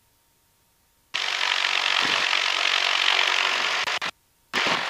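Near silence, then about a second in a loud, steady hiss of cabin and engine noise cuts in through the plane's headset intercom. It cuts off abruptly near the end and briefly cuts back in, as the intercom's voice-operated squelch opens and closes.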